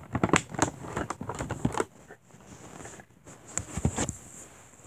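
Close handling noise: a quick flurry of rustles and light clicks and knocks through the first two seconds, then another short cluster of knocks near the end of the fourth second, as the camera and the toy pieces are moved about on fabric.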